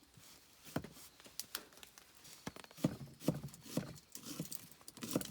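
Irregular knocks and clacks, hollow-sounding, coming every half second or so, with a cluster in the second half.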